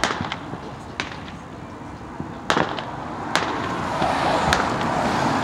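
Aerial fireworks shells bursting in the sky: a handful of sharp bangs, the loudest about halfway through, with a rising rush of noise building near the end.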